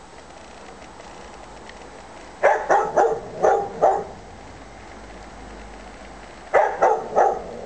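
Bouvier des Flandres barking: a quick run of five short barks about two and a half seconds in, then three more near the end.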